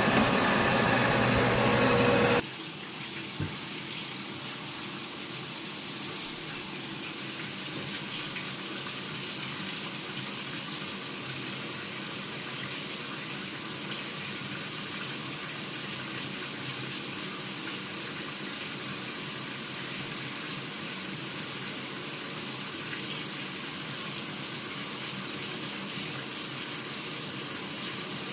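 A loud machine hum with several steady tones cuts off suddenly about two seconds in, leaving a steady rush of running water.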